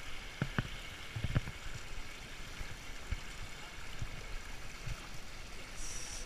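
Shallow river water rushing over rocks in a steady wash, with a few low thumps and splashes from feet wading through it, most of them in the first second and a half.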